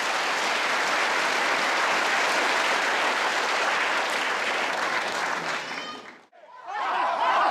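Large crowd applauding steadily, cut off abruptly about six seconds in. Near the end a group of men's voices start shouting and calling out.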